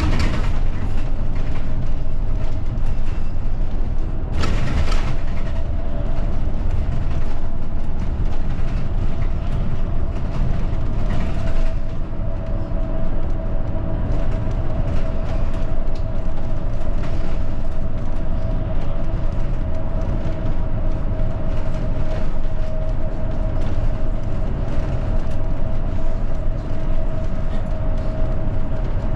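Route bus running along the road, heard from inside the cabin: steady engine drone and road rumble with a continuous whine. About four seconds in there is a brief rush of hiss.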